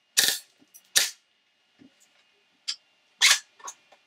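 3D-printed FGC-6FA open-bolt gas blowback airsoft gun firing: sharp shots at uneven intervals, about five in all, some with a short rattle of the bolt cycling. It is set up with a stiff main spring and an extra small spring behind the bolt for more power.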